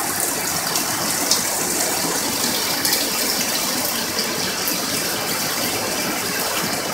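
Heavy rain falling steadily, splashing on wet concrete, with a stream of runoff pouring into a plastic bucket as it fills.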